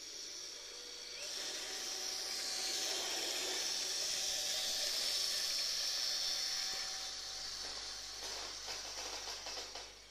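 Märklin Z-gauge E40 model electric locomotive running with a freight train: a high-pitched whirring hiss of its small motor and the wheels on the track, louder in the middle as it passes close. A rapid patter of small clicks comes near the end.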